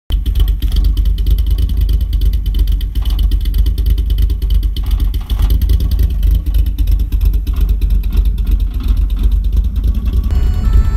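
A VW Mk3 Jetta's 2.0-litre 8-valve four-cylinder, with a fully ported head, a large camshaft, a 4-2-1 header and a Magnaflow cat-back exhaust, idling at the tailpipes. The exhaust runs with a deep, uneven pulsing, the lumpy idle of a big cam.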